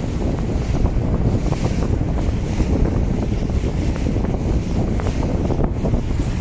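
Heavy wind buffeting the microphone over the rush and splash of choppy water alongside a moving inflatable boat.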